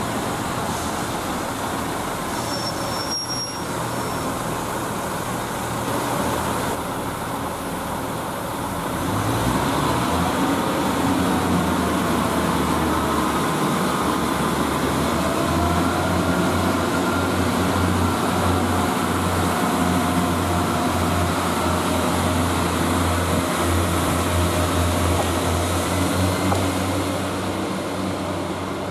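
Two-car diesel multiple unit pulling away from the station, its underfloor diesel engine running under power with a rising whine as it accelerates, growing louder about ten seconds in.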